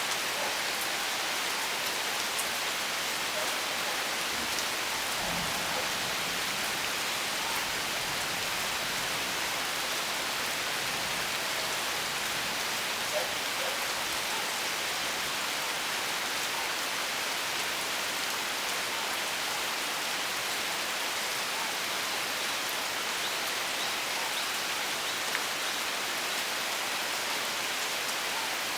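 Steady rain falling, an even hiss of drops with no let-up, and a couple of slightly louder drops about halfway through and near the end.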